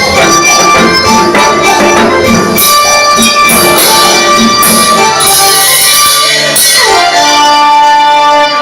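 Electronic keyboard music with percussion: held chords and melody notes, a falling pitch glide about two-thirds of the way through, then a long held note.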